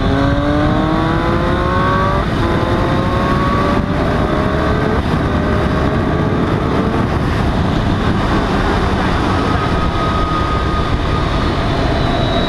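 Sport motorcycle engine accelerating hard at full throttle, its pitch climbing through the gears with quick upshifts about two and five seconds in. From about halfway on, heavy wind rush takes over as the bike runs at high speed.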